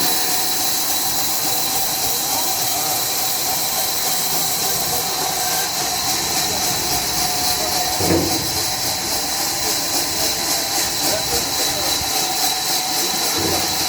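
Sawmill machinery running with a steady, loud high hiss and a faint steady tone, with two dull thumps, one about eight seconds in and one near the end.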